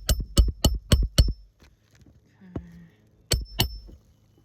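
Hammer driving roofing nails through an asphalt shingle: five quick ringing strikes, a pause, then two more strikes about three seconds in.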